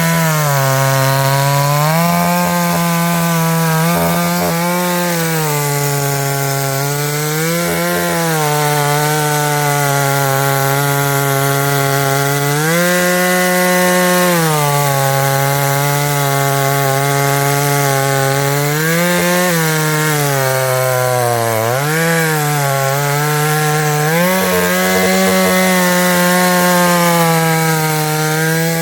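Chainsaw running at high speed, its pitch sagging and climbing back again and again throughout.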